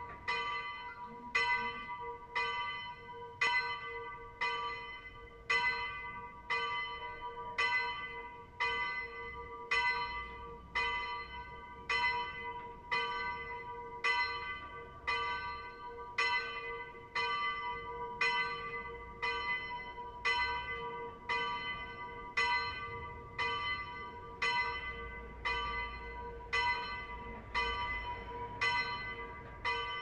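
A single church bell tolling as a death knell, struck evenly about once a second, each stroke ringing on into the next over a steady hum.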